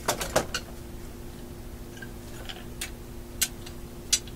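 Metal hand tools being handled on a workbench: a quick cluster of clacks at the start, then a few scattered single clicks, over a faint steady hum.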